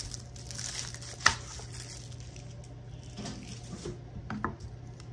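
Rustling and crinkling of dry, papery garlic stalks and leaves being handled and pulled apart by hand on a wooden cutting board, with one sharp knock a little over a second in and a few smaller clicks later.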